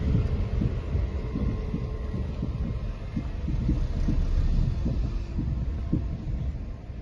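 Wind buffeting the microphone: an uneven low rumble broken by irregular thumps.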